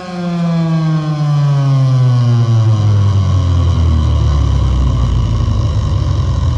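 An electronic tone that slides steadily down in pitch into deep bass, played loud through a DJ sound system's speakers and subwoofers during a sound check.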